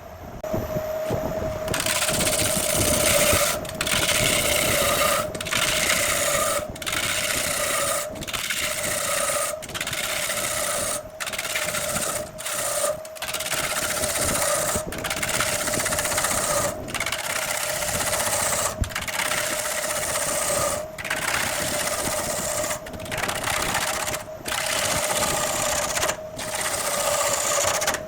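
Wood lathe running with a steady motor hum while a turning tool cuts into the spinning jackfruit wood blank. The cutting starts about two seconds in and comes in repeated passes, each broken by a brief pause, about one every second or two.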